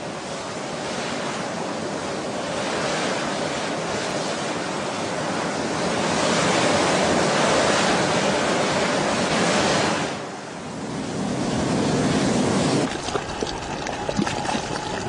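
Steam vent (fumarole) hissing steadily, swelling louder midway and dipping briefly about ten seconds in. Near the end the hiss gives way to a patter of short crackles.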